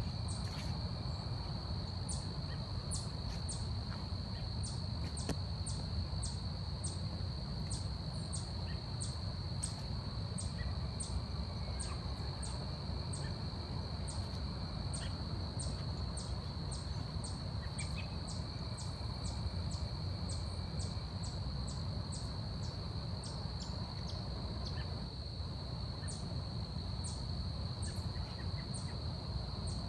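Forest ambience: a steady, high-pitched insect trill held throughout, with short high chirps repeating about once or twice a second and a low rumble underneath.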